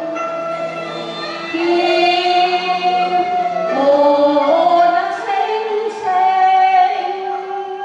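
Cantonese opera song: a woman's voice singing long held notes that step up and down in pitch, over steady instrumental accompaniment.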